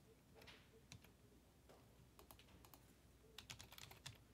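Faint typing on a computer keyboard: scattered keystrokes, with a quicker run of them about three and a half seconds in.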